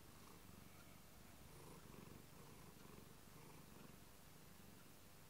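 A domestic cat purring faintly and steadily.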